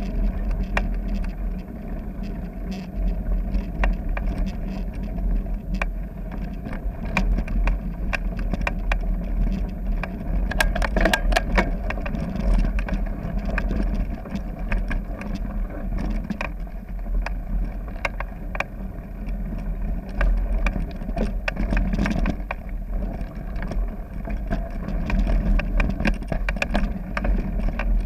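Mountain bike riding over a gravel trail: tyres crunching and rolling, with the bike's chain and frame rattling in many small clicks and knocks, and a steady low rumble of wind and vibration on the bike-mounted camera's microphone. A burst of harder rattling comes about ten to twelve seconds in.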